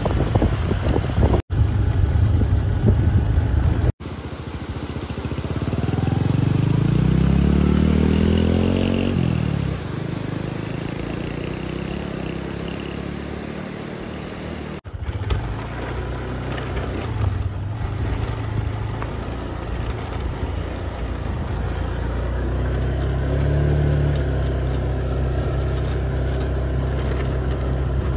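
A vehicle engine running over a low rumble, rising in pitch as it revs up about six to nine seconds in, then settling. The sound cuts abruptly several times.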